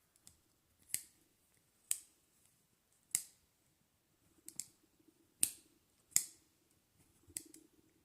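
Leatherman K2 multi-tool's blade being flicked open and snapped shut on its oiled pivot: sharp metallic clicks about once a second, seven in all, two of them double.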